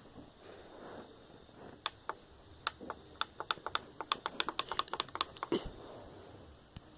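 Computer keyboard keys clicking in a quick run of presses for a few seconds, followed by a louder thump.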